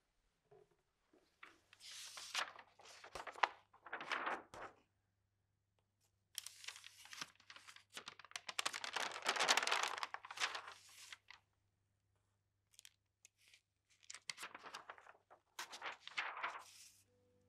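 Paper pages of a sketchbook rustling as they are handled and turned, in three bursts with short pauses between them.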